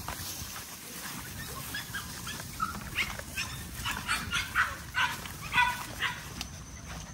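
A litter of American bully puppies yipping, a quick string of short high cries from about three seconds in to about six seconds in.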